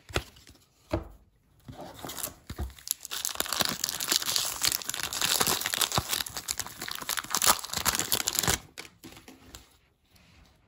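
A 1993 Topps baseball card pack's wrapper being torn open and crinkled by hand: after a couple of light clicks, a dense crackling that goes on for about six seconds and stops suddenly.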